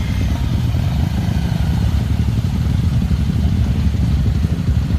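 Enduro motorcycle engine running steadily.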